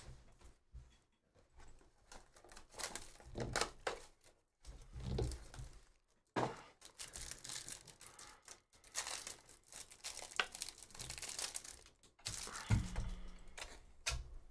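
A Panini football trading-card pack wrapper being torn open and crinkled, followed by the stack of cards rustling and sliding against each other as they are handled.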